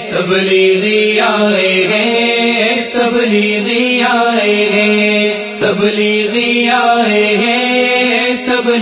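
Wordless chanted vocal interlude: layered voices humming a steady drone under a slowly rising and falling melody, with a short break about two-thirds of the way through.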